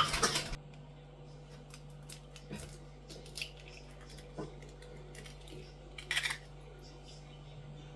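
Kitchen handling sounds: small clicks and knocks of utensils and dishes being moved about, with a louder clatter at the very start and another about six seconds in, over a steady low hum.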